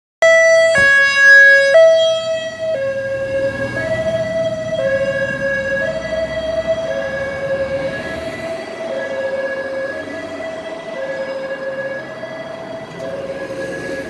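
Ambulance's European-style high-low two-tone siren, switching between a higher and a lower note about once a second. It is loudest for the first two seconds and then runs on a little quieter, over low traffic rumble.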